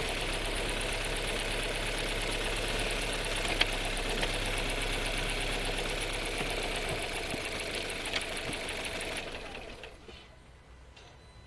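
Skoda Scala's 1.5 TSI four-cylinder petrol engine and DQ200 dry-clutch DSG running at a standstill, heard inside the cabin: a steady, slightly rattly running sound with a couple of sharp clicks. The sound dies away about nine and a half seconds in, leaving only faint ticks.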